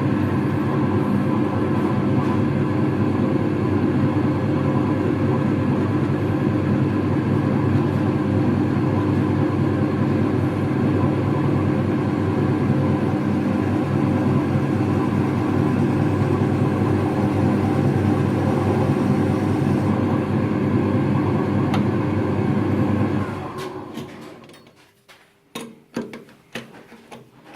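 Lathe running steadily while a 9 mm drill bit centre-drills the end of a bar. About 23 seconds in the lathe is switched off and runs down over a second or two. A few light clicks and knocks follow.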